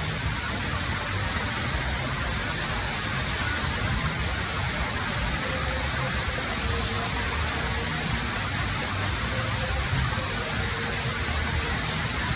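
Steady rain falling on a wet street, an even, continuous hiss.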